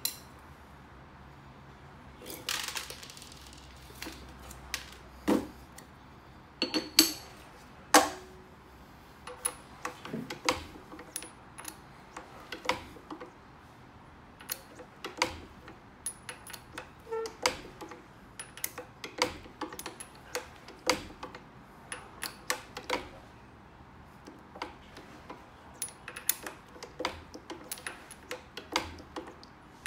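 Steel parts of a handmade pellet mould clinking and clicking as they are handled: sharp irregular metal taps and knocks, some ringing briefly, as a steel pin is worked into the holes of the steel mould block. A short metal scrape comes about two and a half seconds in.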